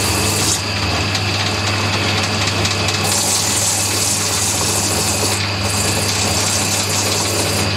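Shoe finishing machine running: its electric motor spins brush and buffing wheels on a horizontal shaft with a steady low hum and whir while a shoe is worked against them.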